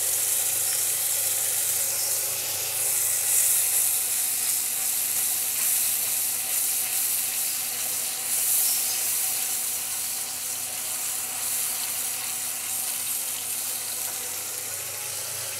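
Ground onion-tomato masala with yogurt sizzling in mustard oil in an aluminium pan, stirred with a wooden spoon while the masala fries. The sizzle is steady and eases slightly toward the end.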